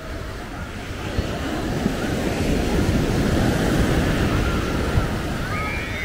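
Ocean surf: a wave breaking, swelling to its loudest around the middle and easing off toward the end.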